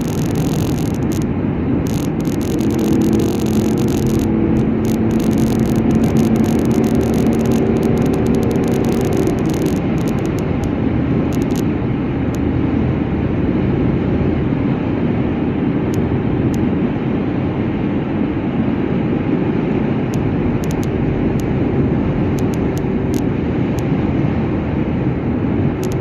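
Steady road and engine noise of a car driving along, with a humming tone for several seconds early on.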